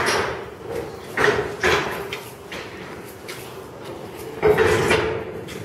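Four loud clanks and bangs from around a subway refuse train's container cars, over a steady hum.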